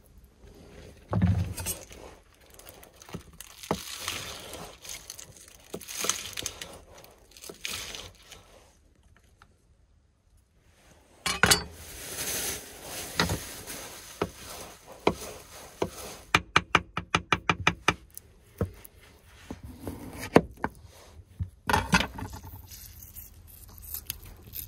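Meal-preparation handling sounds on a wooden cutting board: bowls and utensils clinking and knocking, with a plastic bag rustling. A quick run of sharp taps, about seven a second, comes about two-thirds of the way through.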